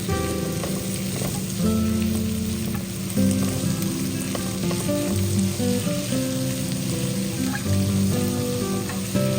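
Diced carrots, broccoli and bell peppers sizzling as they are stir-fried in oil and butter in a pan. Background music with sustained notes that change every half-second or so plays over it.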